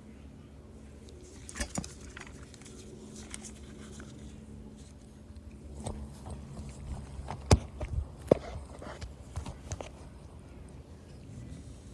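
Hands working wiring and plastic parts into an electric dirt bike's frame: scattered clicks, taps and rustles over a low hum, with two sharp knocks about seven and a half and eight seconds in.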